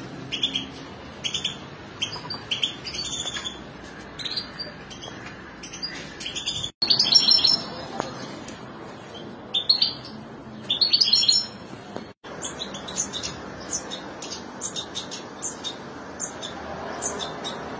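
European goldfinches chirping and twittering in short, rapid bursts of high notes. The sound drops out briefly twice.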